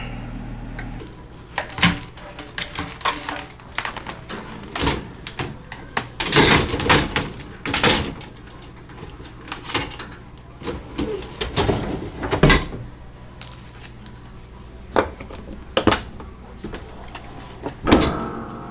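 Irregular knocks and clatters of a plastic computer keyboard being handled and loaded into a dishwasher, with the dishwasher's door and racks being moved.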